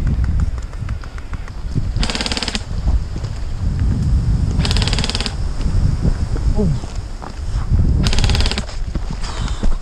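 Airsoft electric gun firing three short full-auto bursts, each about half a second long, a few seconds apart: a rapid, even rattle of shots.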